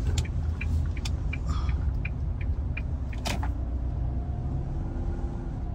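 Steady low rumble of an Isuzu driving on the highway, heard from inside the cabin, with a few light clicks along the way.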